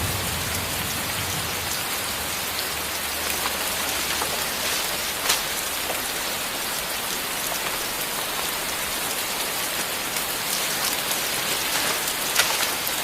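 Steady heavy rain falling, a dense patter of drops with a couple of louder single drips, one about five seconds in and one near the end.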